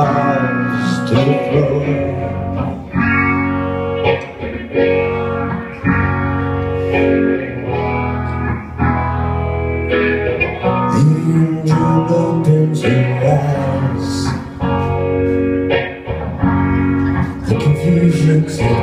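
Live rock band playing a song: electric guitar and drum kit under a sung lead vocal.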